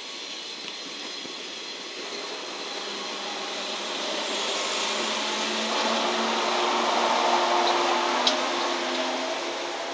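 JR West 115 series three-car electric train passing at speed: the rumble of wheels on rail builds to its loudest as the cars go by, with a steady low hum under it. A single sharp click comes about eight seconds in.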